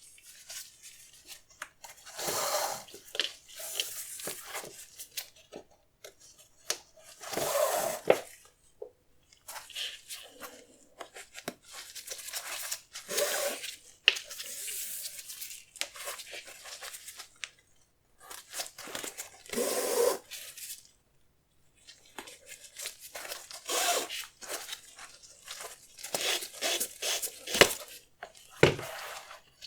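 Hands handling and tearing sneaker packaging, in irregular bursts with a few sharp clicks and short pauses.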